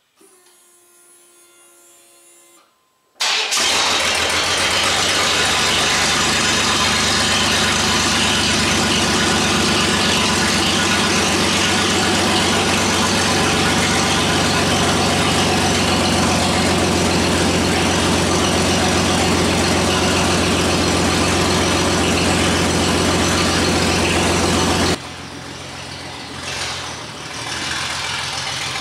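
Chevrolet S-10 Blazer's 4.3-litre V6 on a cold start: after a faint whir for about three seconds, the engine fires abruptly and settles into a loud, steady idle. About 25 seconds in, the running engine sounds quieter and more distant.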